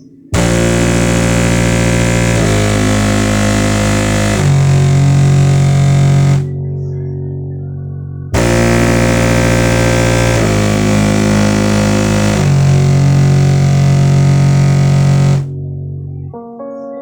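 Loud synthesizer music with heavy bass played through a 6x9 car speaker in a cardboard box: a phrase of long held chords that starts just after the beginning and repeats about eight seconds in.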